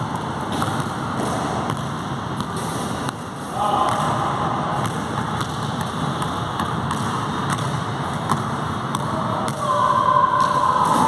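A basketball being dribbled on an indoor court floor, repeated bounce thumps over a steady background noise, with a held higher tone about four seconds in and again near the end.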